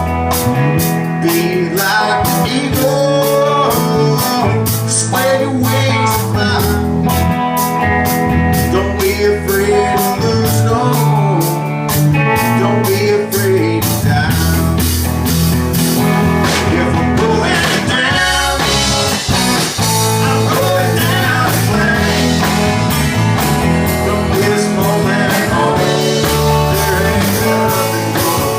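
Live band jamming in a blues-rock style: electric guitar lines over a bass line changing note every second or so, with drums keeping a steady, fast cymbal beat.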